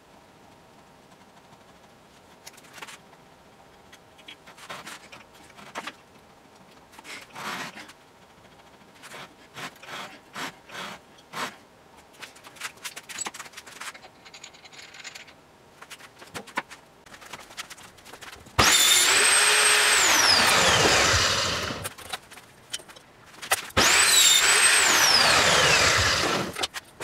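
A stretch of light clicks and handling knocks, then a power tool's motor run twice, a few seconds each. Each run starts suddenly with a high whine, and the pitch falls away as the motor winds down after release.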